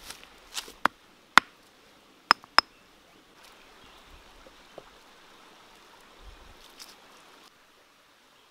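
A few sharp knocks of hard objects, two of them close together with a brief high ring, as clay cookware is handled over a stone-ringed wood fire; then a faint steady hiss of running water that cuts off near the end.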